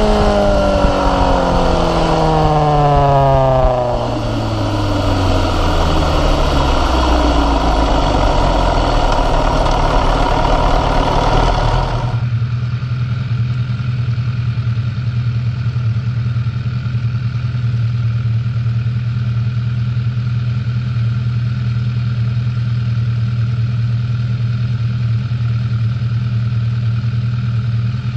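MV Agusta F4 inline-four sportbike engine heard from onboard at speed, its revs falling smoothly as the throttle is rolled off, then steady wind rush. About twelve seconds in it cuts to the engine idling steadily with the bike stopped.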